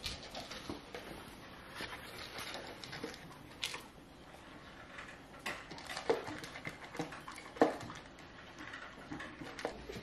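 Dogs eating dry food from their bowls, one of them a slow-feeder bowl: small irregular clicks and rattles of kibble against the bowls.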